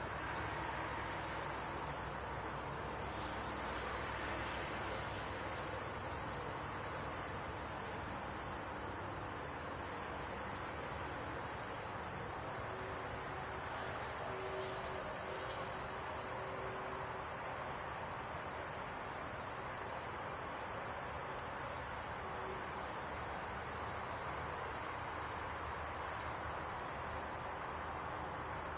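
Steady, unbroken high-pitched chirring of crickets and other insects.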